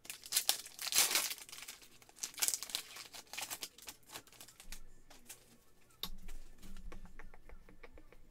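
Foil trading-card pack wrapper crinkling and tearing open, loudest about a second in and again around two and a half seconds in. Near the end comes a quick run of light ticks as the cards are thumbed through.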